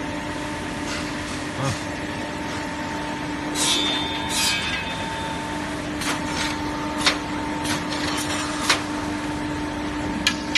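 Electric motors of a mop-stick threading and round-heading woodworking machine running with a steady hum and hiss. Metallic clatter about three and a half seconds in, then a series of single sharp knocks through the second half.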